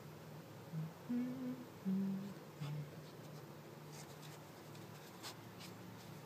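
Four short, low vocal notes in about two seconds, hummed or chirped, over a steady low hum, then a few faint clicks.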